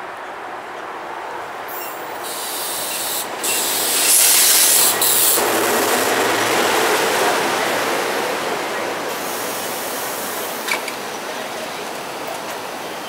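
Pair of SEPTA Silverliner IV electric commuter railcars rolling past at close range as they pull into a station. The running noise builds to a loud hiss about two to five seconds in, then slowly fades, with a sharp click near the end.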